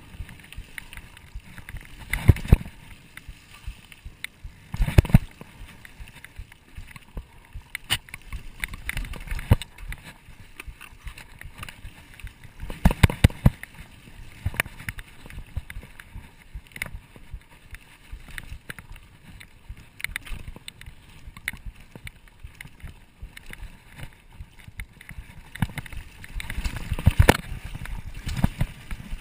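Mountain bike riding over a bumpy sandy dirt singletrack: constant rattling and clicking from the bike, with heavier thumps over bumps about 2, 5, 13 and 27 seconds in.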